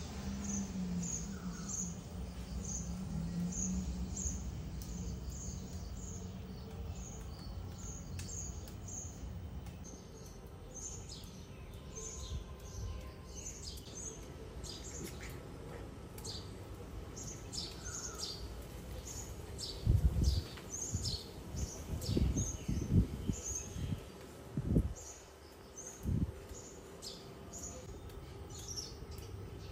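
Small birds chirping over and over, short high chirps about twice a second, over a faint outdoor background with a low hum in the first few seconds. Several loud dull thumps come about two-thirds of the way in.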